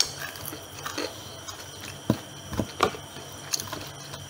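Crispy fried chicken being torn apart by hand, the crust crackling in a few short, sharp snaps, over the steady low hum of an electric fan.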